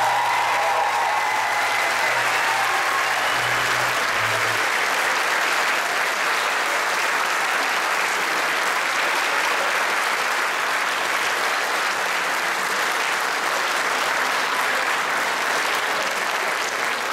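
Large audience applauding with dense, steady clapping. The band's last notes fade out in the first few seconds.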